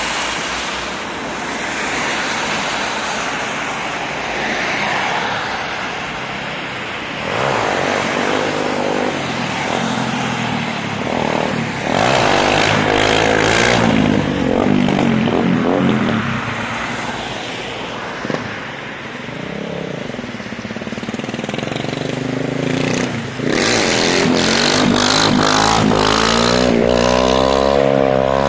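Motorcycle engine revving hard as it rides past, pitch climbing and falling, about twelve seconds in and again near the end, over the hiss of cars passing on a wet road.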